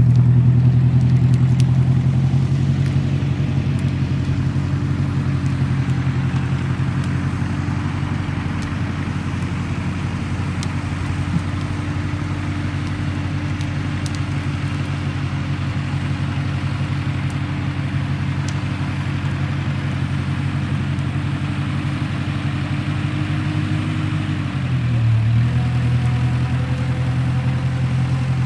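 Massey tractor engine running steadily under load while skidding a felled elm top. Near the end its pitch dips sharply as it lugs, then picks back up.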